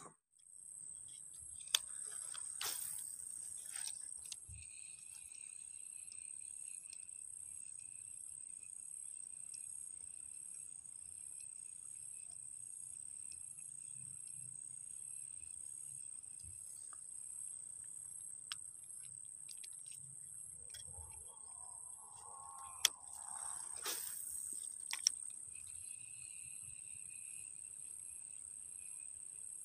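A steady high-pitched insect chorus, with a regular pulsing on top and a second, lower trill that comes and goes. A few sharp clicks, and a brief wavering sound about three-quarters of the way through.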